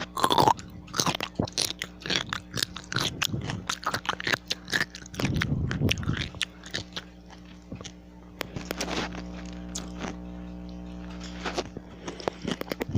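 A person biting and chewing a crunchy pickle close to the microphone, with many sharp wet crunches. The crunches are dense in the first few seconds and become sparser later.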